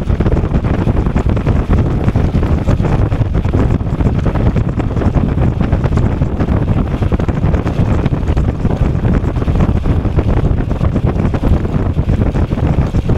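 Wind buffeting the microphone of a camera on an e-bike moving at speed, a loud steady low rumble.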